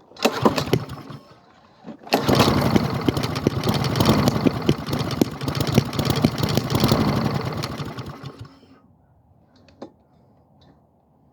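Honda lawn mower engine being pull-started on about a teaspoon of gas squirted in as a primer. A short burst comes first, then about two seconds in it fires and runs loudly for about six seconds before fading out and dying once the priming fuel is used up.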